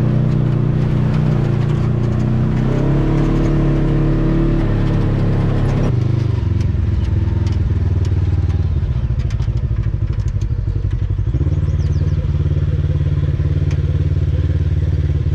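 Polaris RZR XP 1000 side-by-side's parallel-twin engine running under throttle. Its pitch climbs about three seconds in, falls off about six seconds in as the throttle eases, and picks back up about eleven seconds in.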